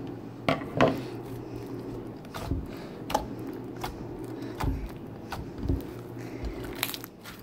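Clear blue slime with fishbowl beads being pressed and squished by hand, giving short sticky pops and clicks, about eight scattered over several seconds, the loudest just under a second in. A steady low hum lies underneath.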